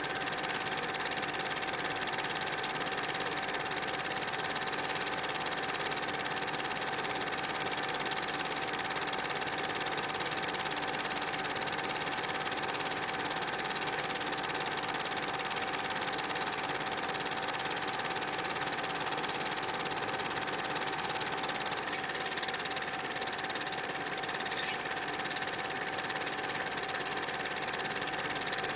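Film projector running, a steady mechanical whir with a constant tone and no change.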